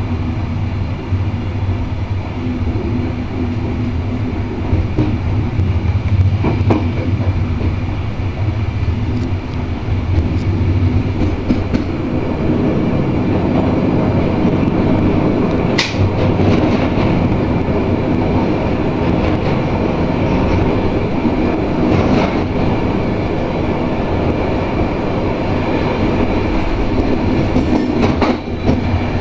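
Passenger train running at speed, heard from the front cab: a steady low rumble and hum with wheels clattering over the rails. It grows louder from about twelve seconds in, as the train runs onto a steel truss bridge. There are a couple of sharp metallic clanks partway through.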